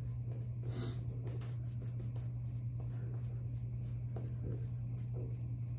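Shaving brush working Proraso Green lather over the skin of the neck: soft, repeated scratchy brushing strokes, over a steady low hum.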